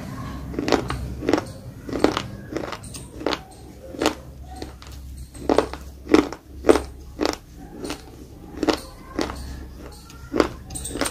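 Close-up crunchy chewing of a dry namkeen mixture of sev and peanuts, with sharp crunches about twice a second.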